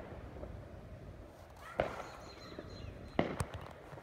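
Sharp cracks outdoors: one a little under two seconds in, then a quick cluster of several more just past three seconds, over a faint background hiss.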